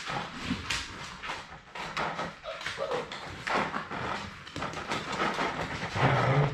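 Labrador puppies moving about a hard floor and nosing at plastic food bowls: scattered, irregular clicks, taps and knocks.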